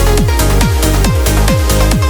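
Uplifting trance music with a four-on-the-floor kick drum at roughly 130 beats a minute. Bass fills the gaps between the kicks, with hi-hats and held synth notes over the top.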